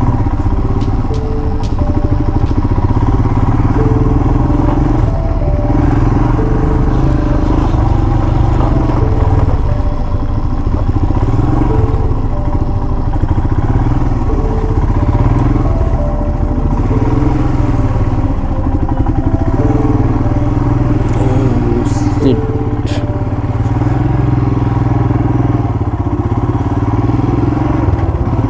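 Motorcycle engine running at low speed while the bike is ridden over rough, uneven ground. The engine pitch rises and falls with the throttle every couple of seconds. A few sharp clicks come about three quarters of the way through.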